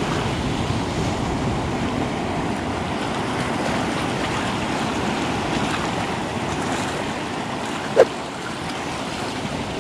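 Sea swell surging and breaking over shore rocks: a steady wash of surf, with one brief sharp click about eight seconds in.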